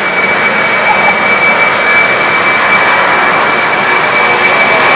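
Boeing 747-400D jet engines running loud as the airliner rolls along the runway: a steady rush of noise with a high whine held on one pitch, growing slightly louder.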